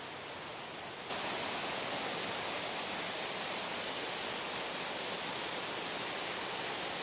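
Waterfall's steady rush of falling water, which suddenly gets louder about a second in.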